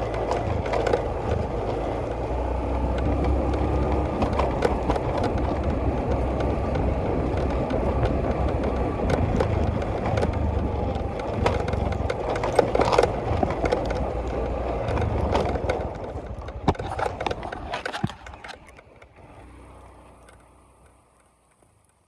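Continuous rolling, rattling travel noise with a low rumble and many sharp knocks and clicks, as from a vehicle moving over a rough track. It fades out over the last few seconds.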